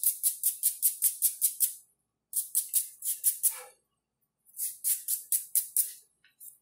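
Quick back-and-forth scrubbing of a computer memory module's contacts being cleaned with isopropyl alcohol: three runs of fast, hissy strokes, about six a second, with short pauses between them.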